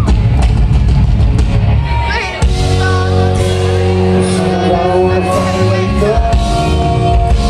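Loud live rock-rap music: a bass-heavy band with singing, played through a concert PA. A little over two seconds in, the music drops for a moment and a new passage with long held notes starts.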